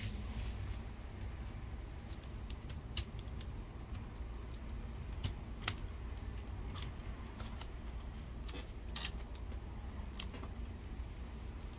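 Scattered light clicks and taps as a laptop and its screen parts are handled, over a low steady hum.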